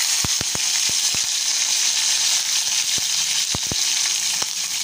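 Hot oil in a kadai sizzling with a steady hiss and scattered sharp pops as fresh curry leaves fry in it.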